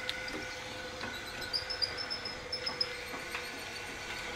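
ZT155 single-cylinder diesel engine of a homemade tractor running steadily with its V-belt drive, a steady mechanical hum. A few light ticks and a faint high chirping come through about a second and a half in.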